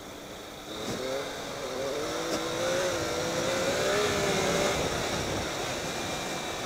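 Triumph Tiger 800 XCx's three-cylinder engine pulling as the bike accelerates on a gravel road, over a steady rush of wind and tyre noise. The engine note comes up about a second in and eases off after about four and a half seconds.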